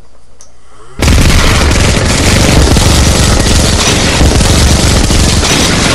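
Added automatic-gunfire sound effect: rapid, continuous machine-gun fire that starts suddenly about a second in and stays very loud.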